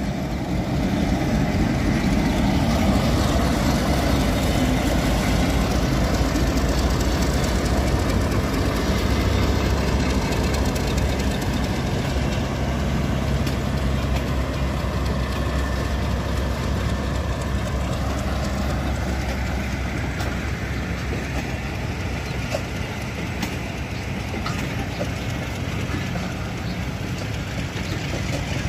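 Diesel-electric locomotive running under power as it pulls a passenger train out, with the rumble of coaches rolling past. The engine's low drone is strongest in the first half and eases off through the second half.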